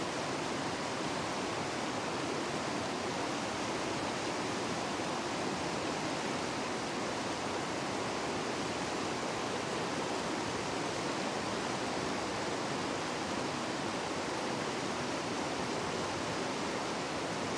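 Fast-flowing river water rushing steadily, an even unbroken hiss of current.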